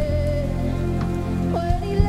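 Acoustic pop ballad with a held melody note over a steady bass, muffled as if heard through a wall from the next room, with rain pattering layered over it.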